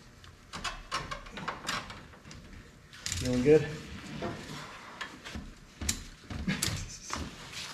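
Irregular metallic clicks and clanks as a four-speed manual transmission is worked loose and pulled out from under a truck by hand.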